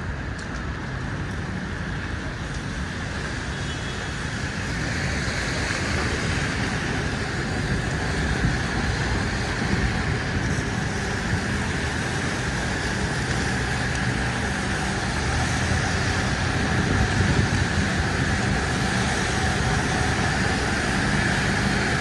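City street traffic: a steady hiss and rumble of passing cars, growing louder about five seconds in.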